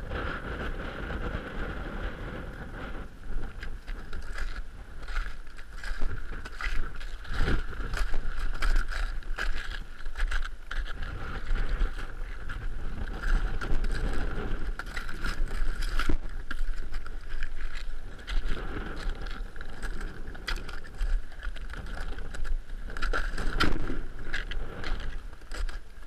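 Strong wind buffeting the camera's microphone, a deep rumble that rises and falls in gusts.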